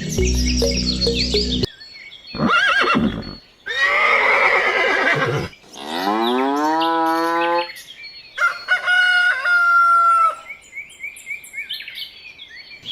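Farm animal calls one after another, several separate cries of one to two seconds each, some rising in pitch and one held on a steady note, with short bird chirps near the end. Background music plays briefly at the start.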